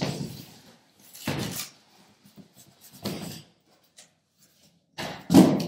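Corrugated cardboard boxes scraping and knocking as the inner box holding a mixer is worked out of its outer shipping carton, in three separate bursts of handling, then a loud thump of the boxes on the table near the end.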